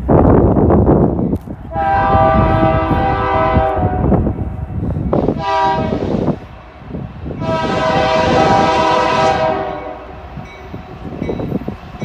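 Freight locomotive air horn sounding a chord in a long blast, a short blast and another long blast, over the loud rumble of the passing train.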